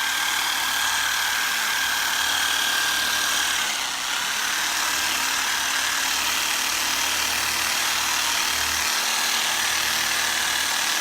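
Makita drill running steadily, used for soft-tissue massage. Its whine shifts slightly about four seconds in.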